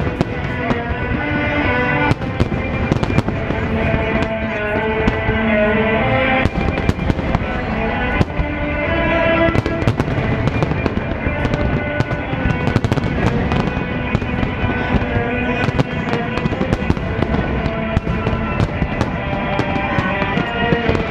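Aerial fireworks bursting in quick succession, many sharp bangs through the whole stretch, over music playing with sustained notes.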